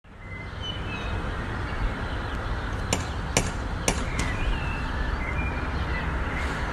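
A cat knocking a front-door knocker with its paw: three sharp metal knocks about three seconds in, close together. Faint bird chirps over a steady outdoor hiss.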